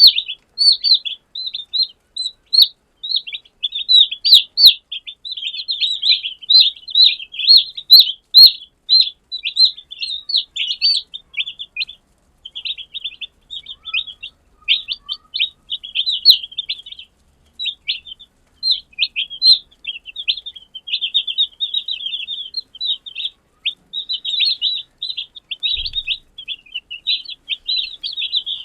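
A group of newly hatched chicken chicks peeping: a dense run of short, high, overlapping chirps that thins out with a few brief lulls after the first ten seconds or so.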